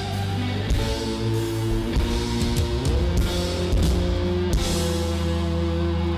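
Live rock band playing an instrumental passage: guitar and sustained notes over drum hits, with a rising slide in pitch about three seconds in.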